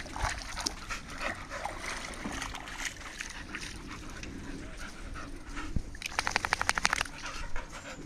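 A dog, likely an American bully, moving and snuffling close by, with a quick rapid rattle lasting about a second near the end.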